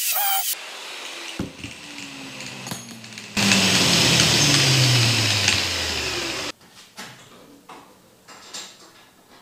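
Angle grinder on metal: its whine falls steadily in pitch as the wheel slows, with a loud stretch of grinding noise from about three seconds in that cuts off abruptly about three seconds later. Light clinks and handling of metal parts follow.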